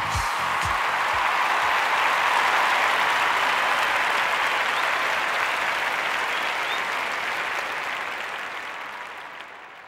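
Crowd applause, fading out over the last few seconds.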